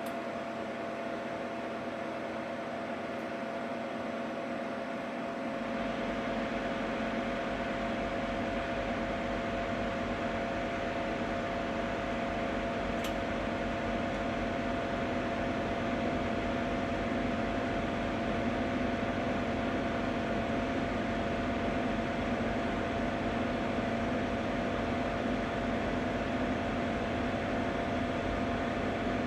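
Ninja Foodi 8-in-1 multicooker running with its fan whirring and a steady hum with a couple of steady tones, recorded while the unit is still cold. About five seconds in a low rumble joins and the noise gets a little louder.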